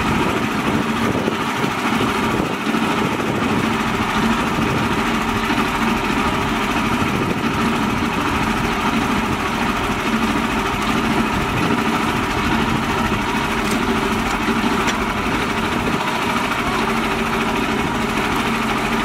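Mini tractor's small engine idling steadily.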